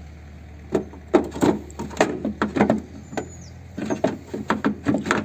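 Plastic coolant expansion tank being handled in the engine bay, giving a string of irregular knocks and scrapes as it bumps against the surrounding body and engine parts, starting about a second in.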